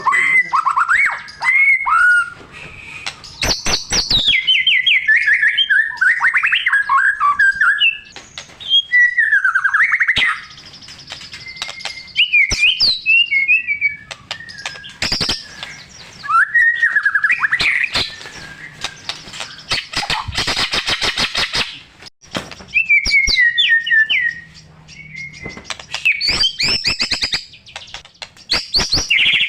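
White-rumped shama singing in full voice: phrases of varied, gliding whistles and warbles, some with rapid runs of clicking notes, broken by short pauses. The song is packed with mimicked fill-in phrases.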